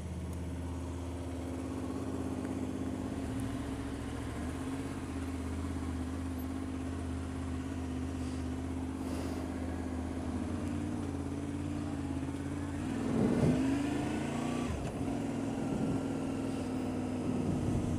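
Motorcycle engine running steadily under way, heard from on the bike over a steady rush of road and wind noise. About two-thirds of the way through the engine note swells and its pitch dips and rises briefly.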